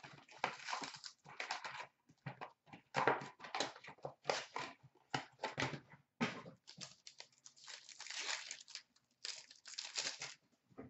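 Hockey card pack wrappers being torn open and crumpled by hand, with the cards inside handled: irregular crinkling and rustling in short bursts.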